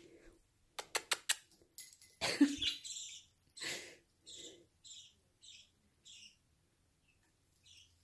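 A pet bird chirping, a string of short high chirps about half a second apart in the second half. Earlier come a quick run of sharp clicks and a couple of louder noisy bursts.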